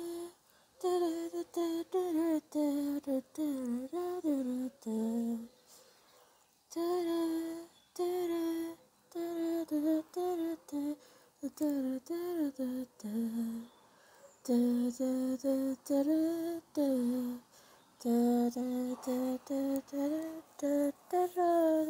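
A child singing a wordless tune to himself in short melodic phrases, with pauses of about a second between some of them.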